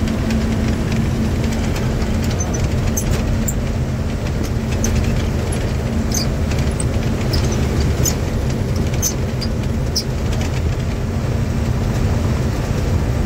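Diesel engine and road noise of a sixteen-tyre truck, heard from the cab while driving: a loud, steady low drone with no change in engine speed.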